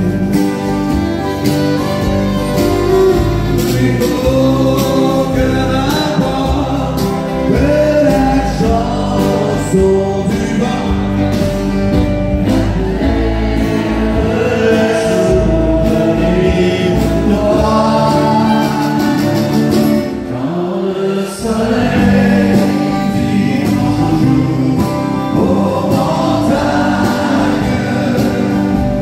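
Live country music: acoustic guitars strummed while several male voices sing together in harmony. The sound drops briefly about two-thirds of the way through, then picks up again.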